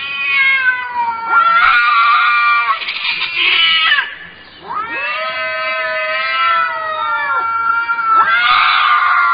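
Two domestic cats yowling at each other in a standoff: long, drawn-out, wavering caterwauls, the voices overlapping at times, with a short break about four and a half seconds in.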